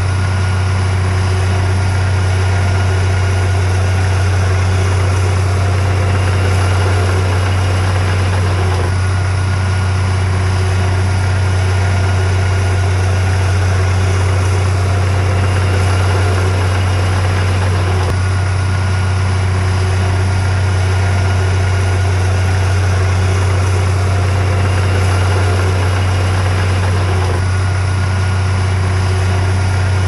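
Heavy diesel engine of earthmoving machinery running steadily at an even speed, its deep low tone the loudest part.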